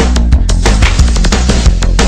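Loud, dramatic background music with a driving beat of sharp percussive hits over sustained low notes.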